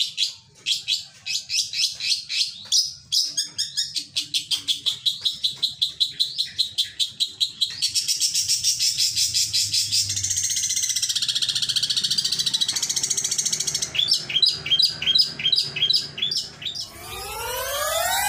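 Long-tailed shrike (cendet) singing: quick runs of sharp, rapidly repeated notes that thicken into dense chatter midway, then slower repeated notes. In the last second a rising swept electronic tone comes in.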